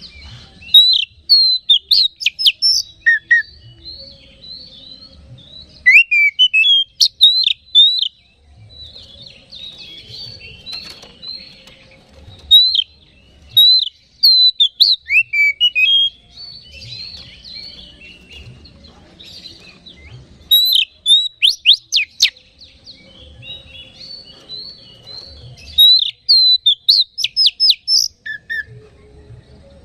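Oriental magpie-robin (kacer) singing hard: loud outbursts of sharp whistled notes and quick chattering phrases come every few seconds, with softer twittering between them. It is the full, heated 'gacor' song that keepers play as a lure to rouse other kacer.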